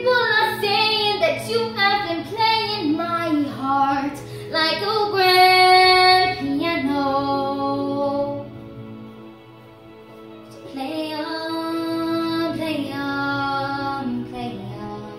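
A young girl singing a slow ballad into a handheld microphone over a backing track, holding long notes with vibrato. The voice breaks off for about two seconds midway, with the backing still running, then comes back in.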